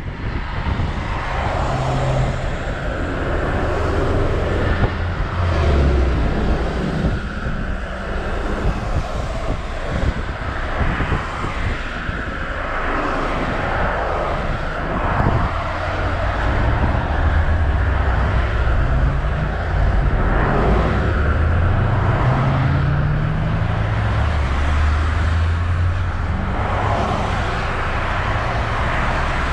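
Road traffic passing on a multi-lane road: a steady run of cars driving by with engine and tyre noise, and several engine notes rising in pitch in the second half.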